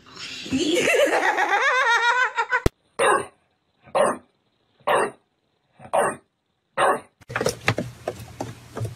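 A person laughing in a high, wavering voice, cut off sharply about two and a half seconds in. Then a bulldog barks five times, about once a second, and near the end there is scuffing noise with a low hum.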